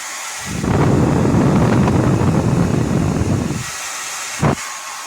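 Revlon infrared ionic hair dryer blowing with a steady hiss. For about three seconds its airstream buffets the microphone with a loud low rumble. A single short knock comes near the end.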